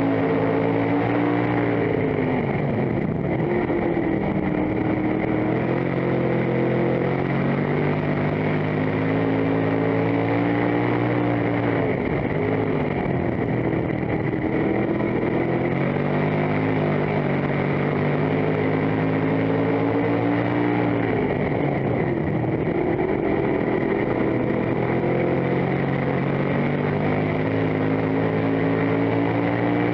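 Dirt-track race car engine heard from inside the cockpit, running hard throughout, its pitch climbing down the straights and falling off into each turn every four to five seconds, lap after lap.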